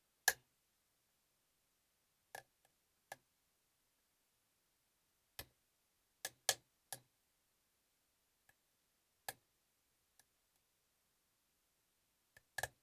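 Scattered sharp clicks from a pin tumbler practice lock being single-pin picked: a hook pick tapping and lifting pins, with pins clicking as they set. About nine clicks come at irregular intervals, the first the loudest and a close pair in the middle.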